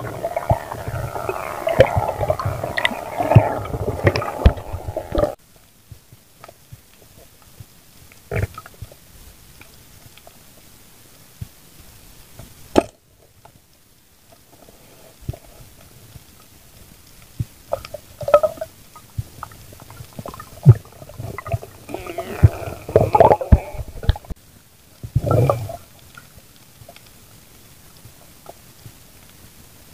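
Muffled underwater sound from a diving camera's housing: gurgling bubbles and scattered clicks and knocks, with a few louder gurgling bursts. The first five seconds are louder and busier, then cut off suddenly.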